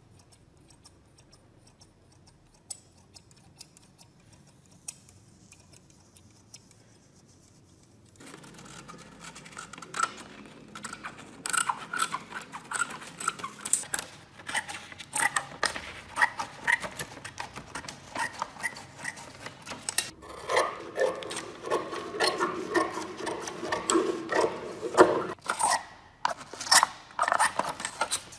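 Restored antique scissors cutting sheets of paper: for about the first eight seconds only a few sharp clicks, then a dense run of snips, blade clicks and paper crackle.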